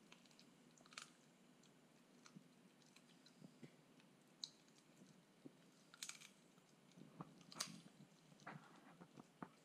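Toy poodle chewing a raw duck foot: faint, irregular crunches of bone and gristle, the loudest about six and seven and a half seconds in.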